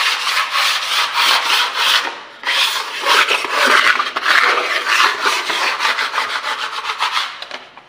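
Putty blade scraping over a dried first coat of wall putty in rapid repeated rasping strokes, knocking down ridges and rough spots to level the wall before the second coat. The scraping pauses briefly about two seconds in and tails off near the end.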